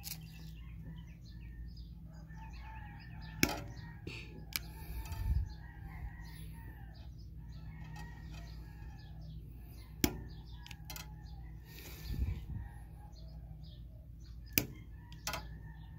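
Quiet background: faint bird chirps over a steady low hum, with a few sharp clicks scattered through.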